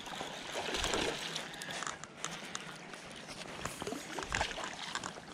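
Water sloshing and splashing as a hooked smallmouth bass thrashes at the surface of a swift creek, over the steady rush of the current, with scattered light clicks.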